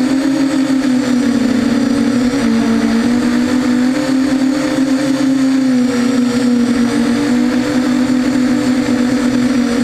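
Brushless motors and propellers of a 250-size mini quadcopter whining steadily in flight, the pitch wavering slightly as the throttle changes. The props and one motor bell are out of balance.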